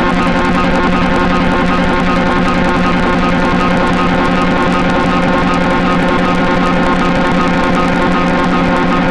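Lira-8 software synthesizer, an emulation of the Soma Lyra-8, playing a loud, steady drone of many stacked tones with a low hum at its core and a grainy, buzzing noise texture over it.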